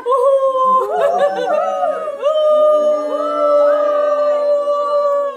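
A group of people calling out together in long, drawn-out, overlapping voices, mostly women's with a lower man's voice joining after about two seconds, as a farewell. The voices stop together near the end.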